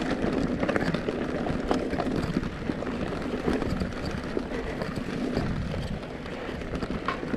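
Specialized Stumpjumper Evo Comp mountain bike rolling over a rocky dirt trail: tyres crunching on loose stones, with many small rattles and knocks from the bike, over a steady rumble.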